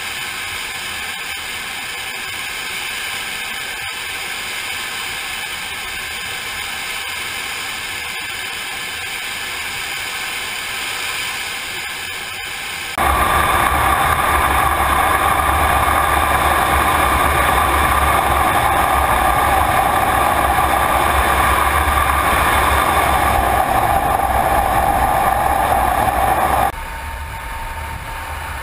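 Steady engine and airflow noise of fighter jets in flight, heard from inside the cockpit. About 13 s in it abruptly becomes much louder and heavier, and about 27 s in it drops back to a lower steady level.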